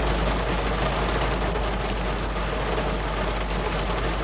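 Rain falling steadily on a car's roof and windshield, heard from inside the car as an even hiss with a steady low hum underneath.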